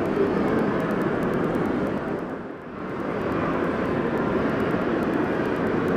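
Steady background din of a crowded indoor shopping mall, briefly dipping about two and a half seconds in.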